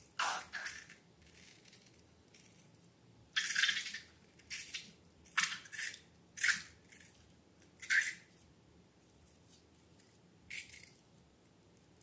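Wet slime squishing and dripping, heard as a series of about eight short squelches spaced irregularly, with the biggest ones about three and a half, five and a half, six and a half and eight seconds in.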